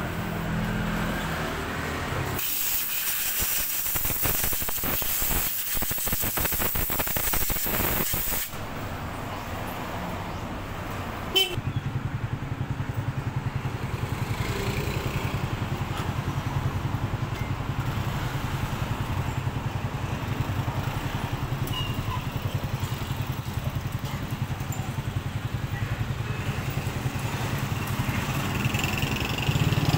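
A loud hiss of compressed air blowing for about six seconds. A little later a sharp click, then a small motor or engine starts and runs steadily with a fast, even pulse.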